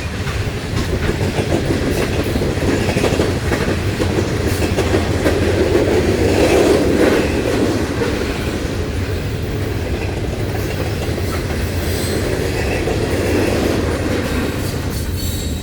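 Loaded coal train of gondolas and hoppers rolling past steadily, its wheels clacking over the rail joints with a continuous rumble.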